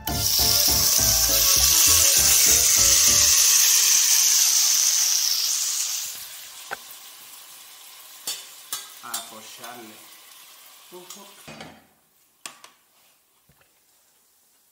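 Chopped tomato and red onion tipped into a hot oiled frying pan on a gas stove: a loud sizzle bursts up at once. The bright hiss cuts down sharply after about five and a half seconds, leaving a quieter frying with a few light clinks, and fades to near silence near the end.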